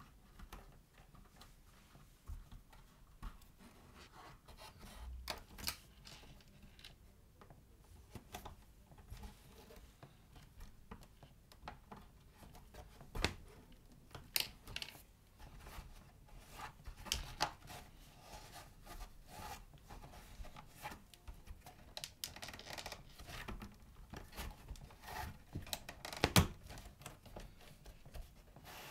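Hand stitching vegetable-tanned leather: a needle pushed through pre-punched holes and the thread drawn through and pulled tight, making short rasps and scrapes, with small knocks and clicks as the leather pieces are handled.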